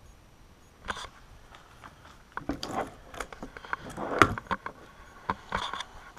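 Handling noise from a .457 Texan big-bore air rifle being picked up and moved on the shooting bench: a single click about a second in, then a run of knocks, clicks and scrapes, the loudest a little after four seconds in.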